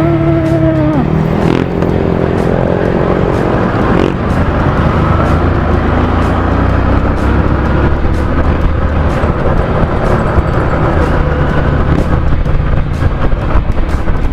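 Motor vehicle engine running with steady road and wind rumble, as heard from a moving motorcycle. A short pitched tone sounds right at the start, and other engine pitches rise a few seconds in.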